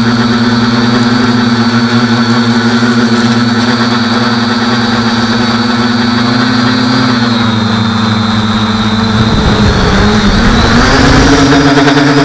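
Quadcopter's electric motors and 8x5 carbon propellers buzzing in flight with a steady hum. The pitch sags about two-thirds of the way in, turns rough for a moment, then climbs higher near the end.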